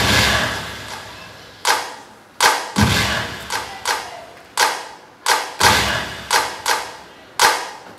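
About a dozen sharp, loud percussive hits at uneven spacing, each ringing out and dying away before the next, in a reverberant hall.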